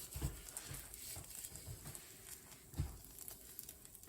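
Faint sizzling and crackling of pancake batter frying in butter and vegetable oil in a hot pan, with a soft low knock a little before three seconds in.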